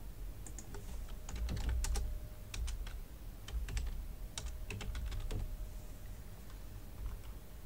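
Typing on a computer keyboard: a run of key clicks that stops after about five seconds.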